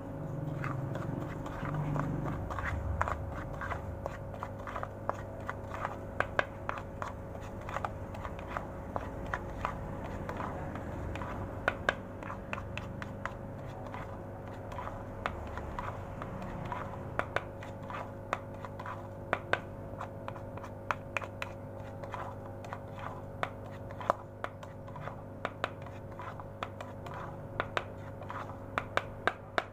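Metal spoon stirring catfish feed pellets in a plastic bowl: irregular sharp clicks and scrapes as the spoon and pellets knock against the bowl. A steady low hum runs underneath.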